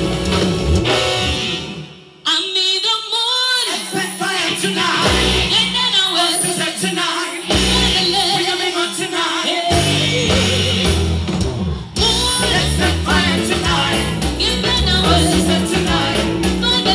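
Live afropop band music with a woman singing lead. The band drops out about two seconds in, leaving the voice over sparse accompaniment with a few bass hits, and the full band with bass and drums comes back in about ten seconds in.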